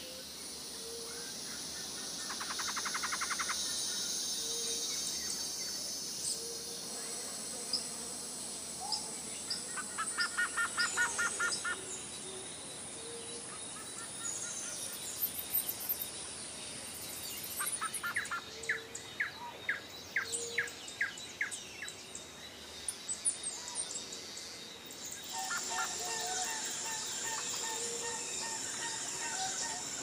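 Forest ambience: assorted birds calling, with several quick trilled runs of notes and a soft low note repeated every second or two over a steady high insect drone.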